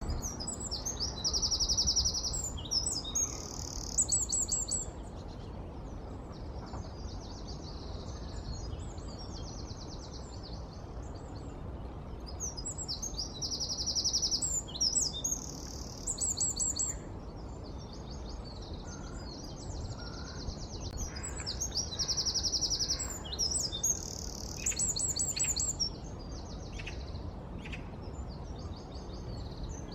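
Eurasian wren singing a loud song: three bursts of fast, high, trilling phrases, each about four seconds long and separated by pauses of several seconds. A steady low rumble runs underneath.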